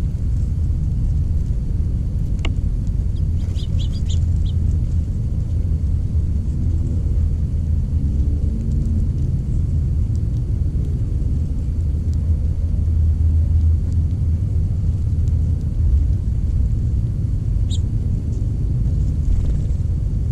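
A steady low rumble runs throughout, with a few brief high bird chirps, a small cluster about three to four seconds in and one more near the end.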